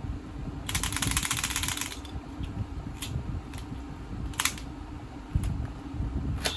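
Plastic Kamen Rider Build Driver toy belt being worked by hand: a burst of rapid ratcheting clicks lasting about a second as its crank lever is turned, then several separate sharp clicks.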